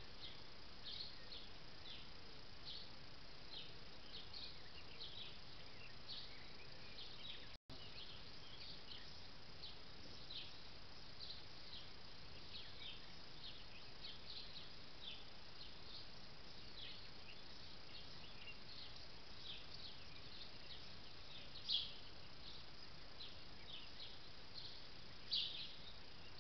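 Faint high chirps of small birds at dawn, short calls coming irregularly several times a second over a steady hiss, with two louder chirps near the end. The sound drops out for an instant about seven and a half seconds in.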